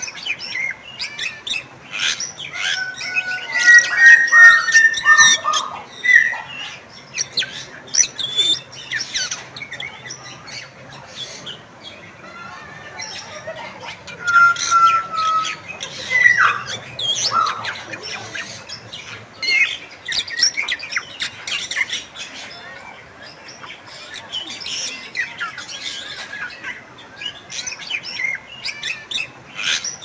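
Bali myna (Bali starling) calling: harsh squawks, chatters and short whistled notes in bouts, loudest about four seconds in and again around fifteen to seventeen seconds.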